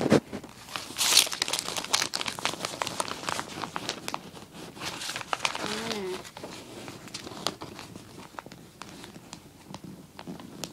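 A sheet of paper being rolled tightly into a tube by hand, crinkling and rustling, busiest in the first few seconds and thinner toward the end.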